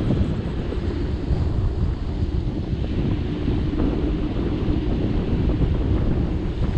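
Wind buffeting the microphone of a camera moving along a road: a steady low rumble that never lets up.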